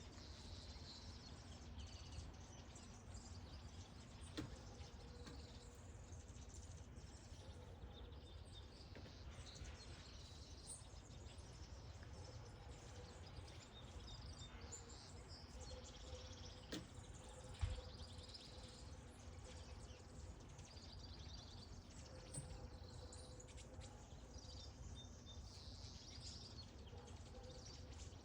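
Faint bird chirps scattered over a quiet outdoor background with a low rumble and two brief clicks.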